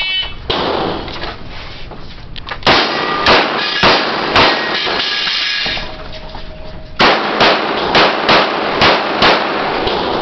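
Handgun shots echoing in an indoor range: a short beep at the start, then a single shot, four quick shots about half a second apart, a pause, and six more in quick succession.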